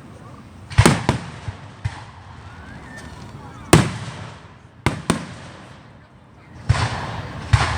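Fireworks going off: several sharp booms, some in quick pairs, then a dense run of crackling pops near the end.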